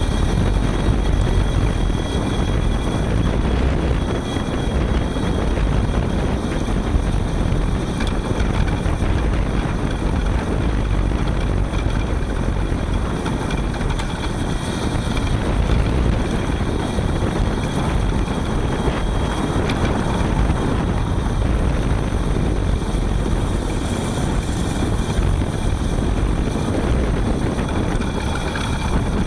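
Front hub motor of a Panasonic ViVi Charge WT regenerative electric-assist bicycle running while riding: a steady motor whine of several high tones over road rumble and wind on the microphone.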